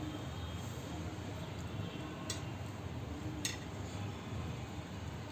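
Two light clinks against a steel cooking pot, a little over a second apart, as boiled eggs are set by hand into a thick tomato curry, over a steady low hum.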